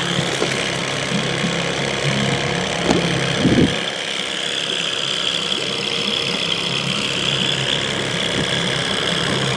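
Boat motor running steadily at low trolling speed, with a short low knock about three and a half seconds in.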